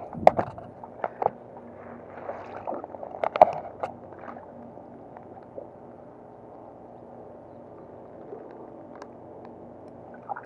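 A caught bullseye snakehead being let go into a pond: a few sharp knocks and gurgling water sounds in the first four seconds, then only a low steady background.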